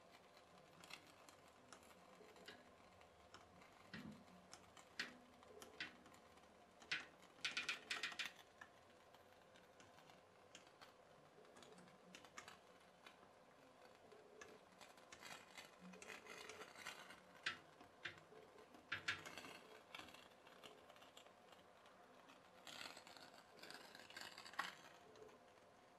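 Faint, irregular clicking and ticking from a pop-pop boat's CO2-capsule steam boiler as it pulses water in and out of its three pipes. The clicks come in short, quicker clusters about a third of the way in, about three-quarters of the way in, and near the end.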